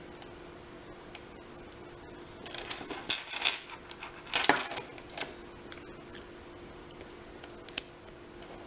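Metallic clicking and rattling of a disc detainer pick being worked in a Rolson disc detainer padlock, coming in two short clusters about two and a half and four and a half seconds in, with a few single faint clicks afterwards.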